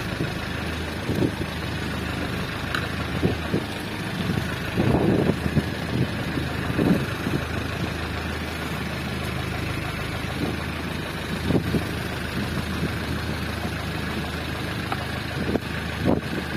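Fishing boat's engine running steadily with a low hum, with a few brief knocks or splashes now and then.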